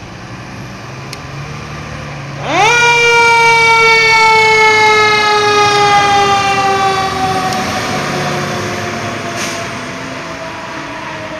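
Fire engine siren winding up sharply about two and a half seconds in, then slowly falling in pitch and fading as it winds down. The truck's engine runs underneath.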